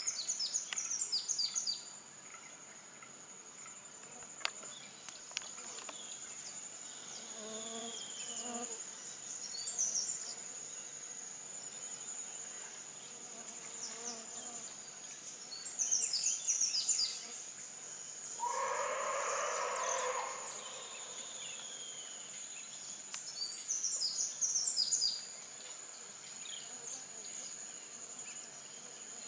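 A steady high-pitched drone of tropical insects. Over it come bursts of high, quick falling bird chirps, roughly every seven or eight seconds, and a lower call lasting about two seconds about two-thirds of the way through.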